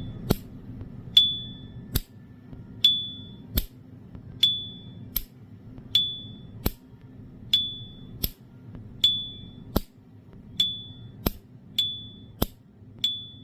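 S.T. Dupont 16457 New Line lighter's lid being flicked open and snapped shut about nine times in a steady rhythm. Each opening gives the lighter's clear, high ringing "cling" ping and each closing a short dry click. The ring is clean, the sign of a freshly restored lid sound.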